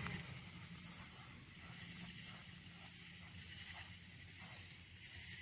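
Faint night insects, crickets or katydids, chirping in repeating high-pitched pulses over a soft steady hiss of outdoor ambience.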